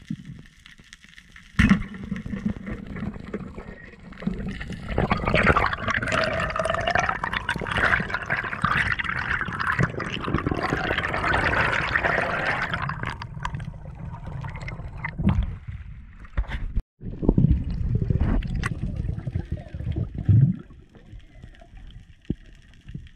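Underwater: a single sharp click about a second and a half in, then a long stretch of bubbling and rushing water, loudest in the middle, easing off toward the end with a few scattered knocks.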